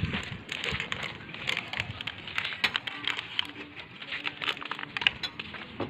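Irregular light clicks and crackles, with a faint steady hum about halfway through.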